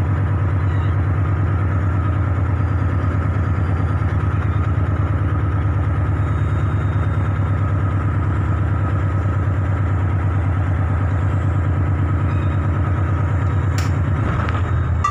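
A harbour launch's engine running steadily underway, a low drone with a rapid, even pulse, heard from on board. A few sharp clicks come near the end.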